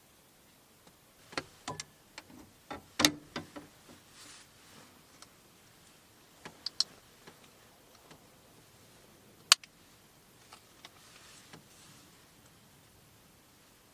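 Irregular small clicks and knocks, as of objects being handled and set down. A quick cluster comes in the first few seconds, the loudest about three seconds in, then a single sharp click about halfway through, with soft rustling between.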